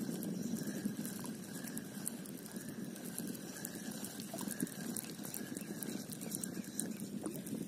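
Small waves sloshing and lapping against the posts of a wooden jetty, a steady watery wash.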